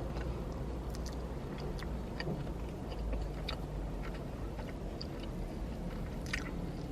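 Close-up chewing of fast food, with scattered small wet clicks and smacks, over a steady low hum.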